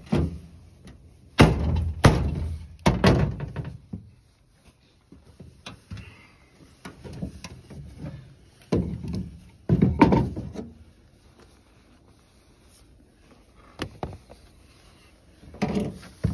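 A sandhill crane carcass being shifted and handled on a pickup truck's metal tailgate: a series of irregular thumps and knocks. They come in clusters, loudest between about one and three seconds in and again around nine to ten seconds in, with quieter rustling between.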